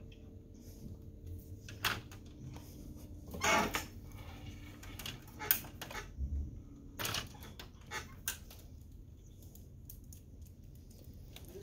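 Scattered clicks and knocks of plastic and metal printer parts being handled and fastened with a screwdriver, with a short scraping burst about three and a half seconds in.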